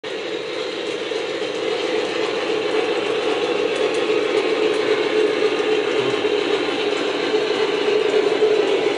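Model train running on the layout track: a steady mechanical rumble with a constant hum, growing a little louder over the first seconds.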